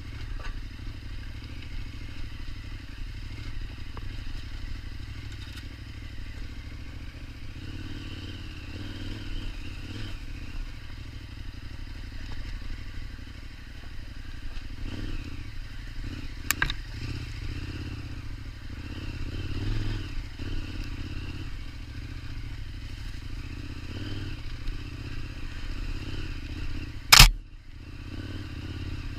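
KTM 1290 Super Adventure's V-twin engine running at low revs while ridden off-road, with clattering from the bike. One sharp knock comes a little past halfway, and a much louder sharp knock comes near the end.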